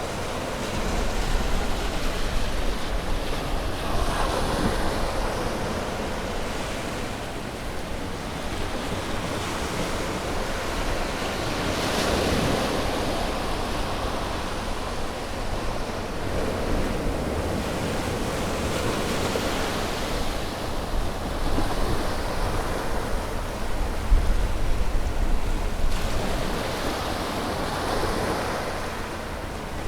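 Sea waves breaking and washing on a shore: a continuous surf hiss that swells and falls back every several seconds.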